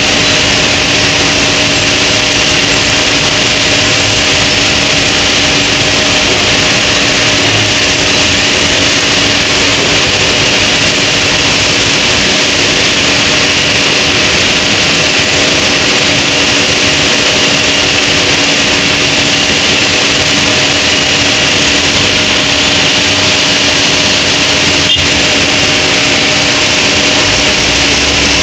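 Heavy machinery engines running steadily: a constant loud drone with a fixed hum that does not rise or fall, and one brief click near the end.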